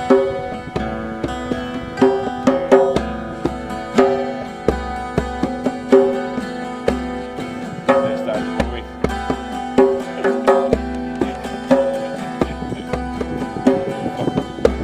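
A 12-string acoustic guitar picking a ringing, repeating riff, with a djembe played by hand alongside it; the pattern comes round about every two seconds.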